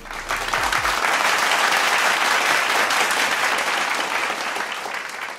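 Audience applause, swelling over the first second and slowly thinning out near the end.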